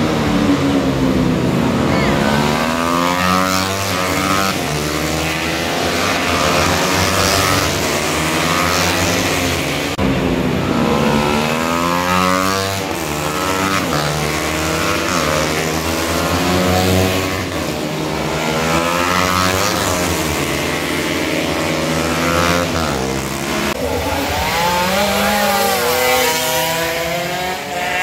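Several small racing motorcycles revving hard at once, their engine notes climbing and dropping over and over as they accelerate, shift and back off through a corner.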